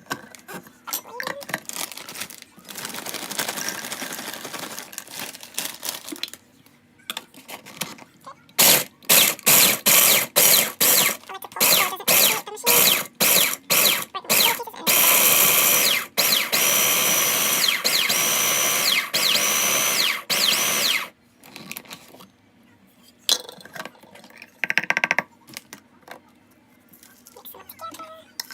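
Electric blender grinding hot Cheetos into crumbs: a run of short pulses, then about six seconds of steady running that stops abruptly.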